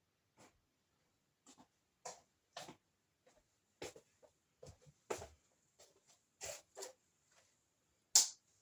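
Pet hamster stirring in its cage: irregular short rustles, scratches and clicks, about two a second, with a sharper hiss near the end.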